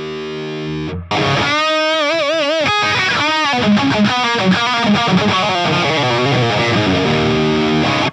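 Electric guitar played through the TONEX One amp-modelling pedal. A held chord rings for about a second, then a louder lead line starts, with wide vibrato on sustained notes followed by quicker runs of notes.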